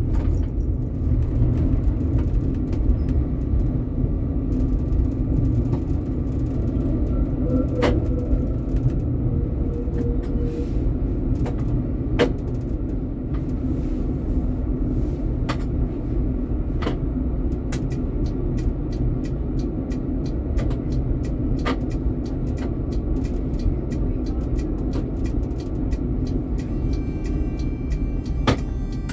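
Tram in motion: a steady low rumble, with a few sharp clicks at irregular intervals.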